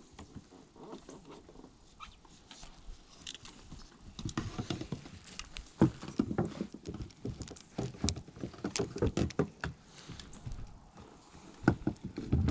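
Close handling noise of fishing gear: irregular rustles, scuffs and small clicks as a rod and lure are handled, with sharper knocks about six seconds in and near the end.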